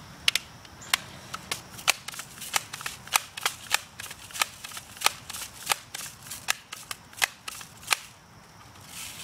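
A quick run of sharp clicks, about two or three a second and irregular, from a Daisy BB gun's action being worked by hand.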